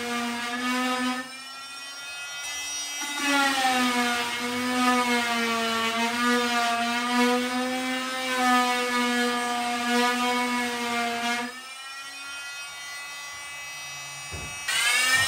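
Oscillating multi-tool fitted with a sanding pad, running with a steady buzzing hum as it sands the bottom edge of a wooden cupboard door so that the door stops rubbing. It gets louder while pressed into the wood and softer when eased off, from about a second in until about three seconds, and again after about eleven seconds. There is a brief loud burst at the very end.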